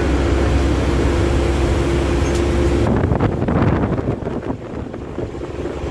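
Bus engine drone and road noise inside the cabin of a moving bus. About halfway through, the steady engine note stops and the sound drops, with a short run of knocks and rattles.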